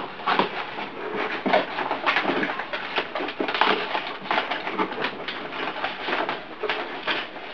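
Brown wrapping paper crinkling and rustling in fits and starts as hands work their way into a paper-wrapped gift box.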